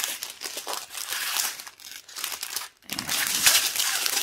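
Strip of small clear plastic bags of diamond painting drills being handled, crinkling in several bursts with short pauses, loudest near the end.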